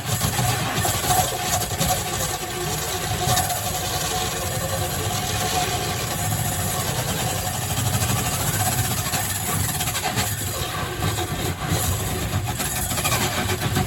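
Electric drill running steadily under load, driving a large 6-inch hole saw as it cuts a hole for a can light.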